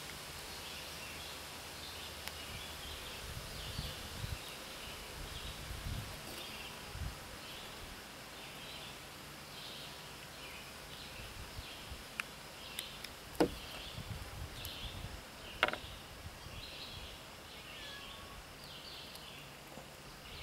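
Outdoor ambience with repeated high chirping, and a few sharp clicks and soft knocks from the small metal parts of a two-stroke weed trimmer carburetor being handled and taken apart, the loudest clicks about halfway through.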